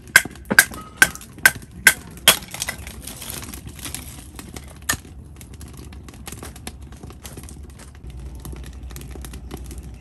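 Split firewood burning in a box-shaped fire pit, crackling and popping. A run of sharp pops about twice a second comes in the first two and a half seconds, with another a little later, then fainter scattered crackle.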